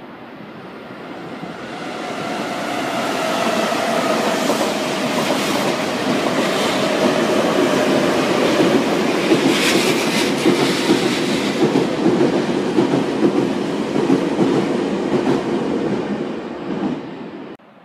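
Nankai electric commuter train passing along the platform. The rumble swells as it nears, the wheels clatter over rail joints as the cars go by, and a motor whine falls slowly in pitch. The sound cuts off suddenly near the end.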